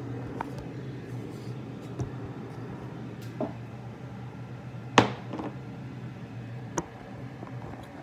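Scattered light knocks and clicks of kitchen items being handled, with one sharp click about five seconds in, over a steady low hum.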